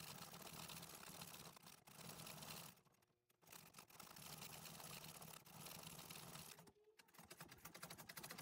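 Antique treadle sewing machine stitching embroidery, a faint rapid run of even needle clicks. It stops briefly about three seconds in and again about seven seconds in, then starts again each time.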